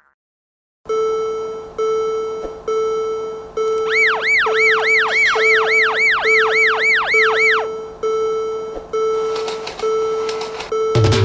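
Cartoon railroad-crossing bell sound effect: a single bell-like tone struck about once a second, each strike dying away. For a few seconds in the middle, a warbling siren-like sweep rises and falls about three times a second over it. A low thump comes near the end.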